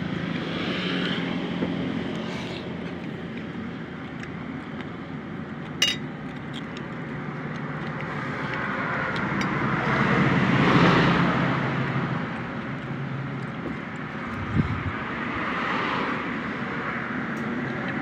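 Road traffic: a steady background rumble in which a vehicle passes, loudest about halfway through, with a smaller swell near the end. A single sharp click sounds about a third of the way in.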